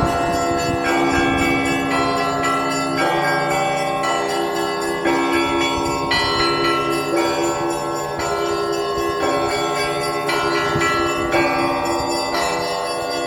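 Russian church bells ringing: several bells of different pitches are struck in a steady rhythm, with a main stroke about once a second and their tones ringing on over one another.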